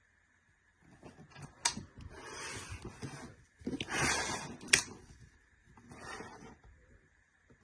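Packaging being handled and opened: three bouts of rustling and scraping, with two sharp clicks.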